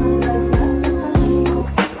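Background music with a steady beat, held bass notes and plucked guitar.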